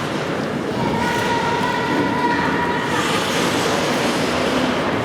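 Ice hockey rink noise during a youth game: a steady, even wash of sound, with a steady tone held for about two seconds starting about a second in.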